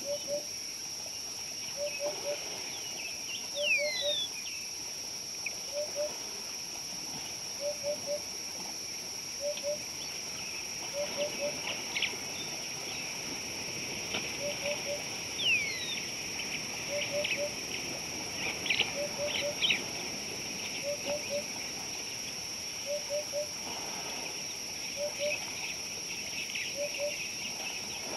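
Outdoor bush ambience: a steady high-pitched insect drone, a bird repeating a short two- or three-note call about every two seconds, and scattered higher bird chirps and falling whistles.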